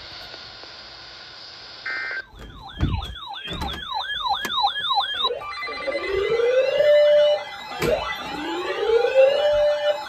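Weather alert radios sounding their siren-style alarms for an incoming warning. A short two-tone data burst comes about two seconds in, then a fast warbling tone, and from about five seconds in several overlapping rising whoop sweeps, with a few handling thumps.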